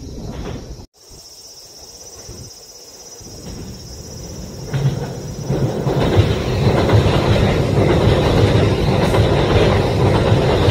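A train approaching on the rails, growing louder from about four seconds in and then running past loudly, after an abrupt cut about a second in.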